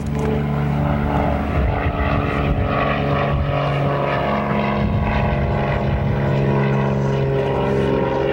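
A steady mechanical drone at a fixed pitch, like a motor running, with a second, higher hum joining about four seconds in.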